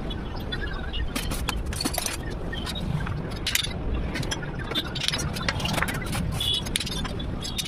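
Irregular metallic clinks and taps from steel parts being handled and worked, some briefly ringing, over a steady low rumble.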